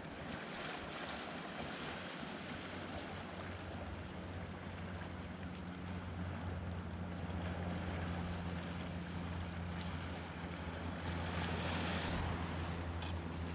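Wind noise on the microphone and water moving around a sea kayak drifting in the tide, with a low steady hum that grows louder from about halfway through.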